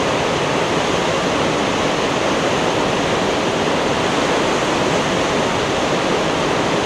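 Steady rushing of a big-water river rapid in flood, its waves and holes making an even, loud roar of water.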